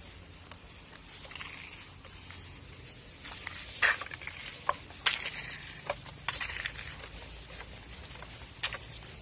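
Footsteps on a paved path: irregular taps and scuffs, the loudest about four and five seconds in.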